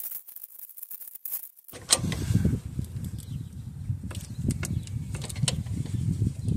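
Adjustable wrenches turning the screw of a crankshaft pulley installer tool: scattered metal clicks over rough, low handling noise. For about the first second and a half there are only faint sharp ticks.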